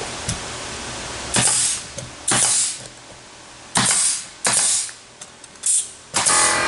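Short hissing sprays from an aerosol can of expanding spray foam, about five bursts of under half a second each, then a longer spray starting near the end.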